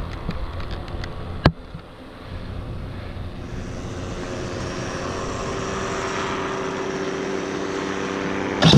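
Paramotor engine idling steadily behind the pilot, with one sharp click about a second and a half in. Just before the end it is suddenly opened up to full throttle for the takeoff run.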